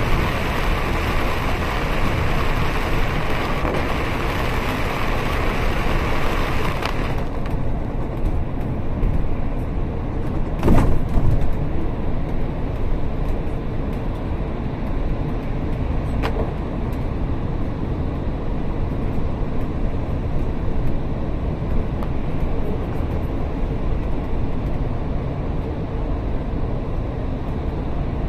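Inside a moving bus in heavy rain: rain hissing on the bus over the low rumble of the engine and tyres on the wet road. About seven seconds in the rain noise cuts off sharply as the bus passes under an elevated road, leaving only the steady engine and road rumble, with a loud thump a few seconds later.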